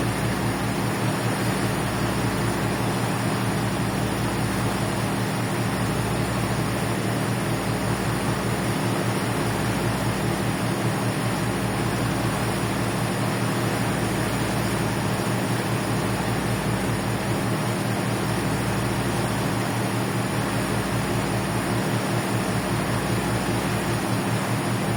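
A ferry's engines running steadily: a deep, even hum with a slow beat in the lowest notes about every two seconds, over a constant hiss.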